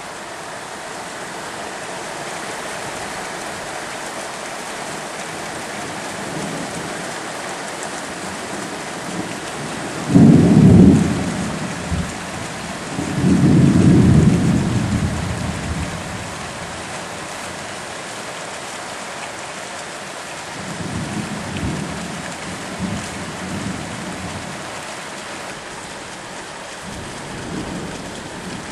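Thunderstorm: steady rain throughout. About ten seconds in comes a sudden loud clap of thunder, then a longer rumble a few seconds later, and fainter rumbles of thunder later on.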